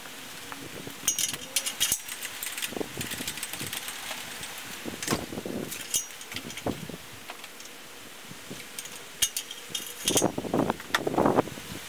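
Light metallic clinking and rattling of an engine hoist's chains and the hanging engine as it is lowered into the engine bay, with a few duller knocks and scrapes near the end.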